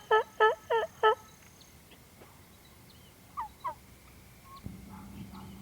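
A run of loud turkey yelps, about three a second, stopping about a second in. Two short falling bird chirps follow a few seconds later, and a faint steady low hum comes in near the end.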